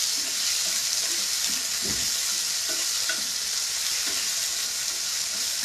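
Shrimp sizzling in olive oil in a hot skillet, a steady hiss, while a thin wooden spatula stirs them with soft knocks and scrapes against the pan, one firmer knock about two seconds in.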